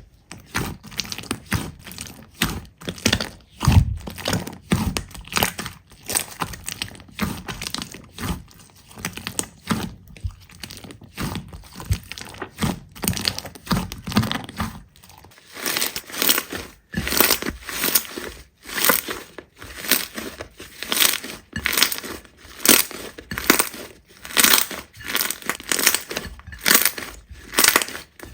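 Slime being squeezed and pressed by hand: a dense run of sticky popping and crackling clicks, with soft low squelches mixed in during the first half.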